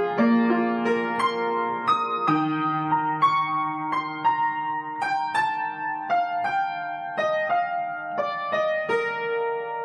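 Solo piano playing a slow, gentle piece: a melody of about two notes a second over held low notes, the harmony changing every second or two.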